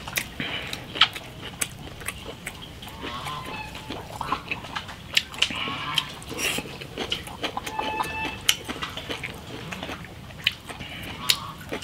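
Close-up chewing and lip-smacking of a person eating in big mouthfuls, with many short sharp clicks throughout.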